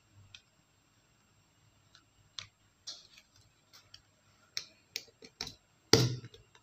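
Scattered light clicks and taps from paper pages and a clear plastic mini ring binder being handled, then one sharp metallic snap about six seconds in as the binder's metal rings are pressed shut.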